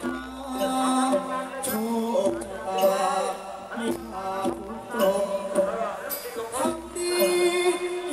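Likay singer singing a melodic Thai vocal line into a microphone, with instrumental accompaniment and a soft low pulse about once a second.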